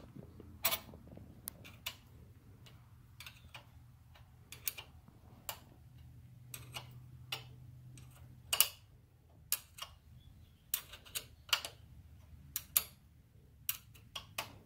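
Scattered sharp metal clicks of a hand tool on the throttle-cable clamp screw as the cable is tightened on a riding mower's engine, irregularly spaced and some in quick pairs.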